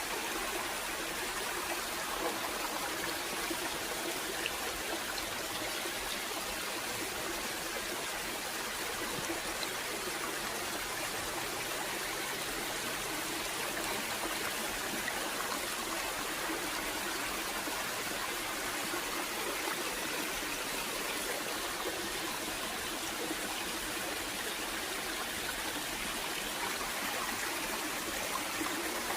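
Running water of a stream, a steady, even rush.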